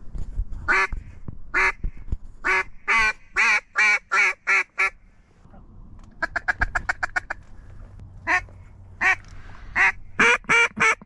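Mallard duck call blown by a hunter: a string of loud hen quacks, a fast run of short chuckling notes about six seconds in, then more quacks.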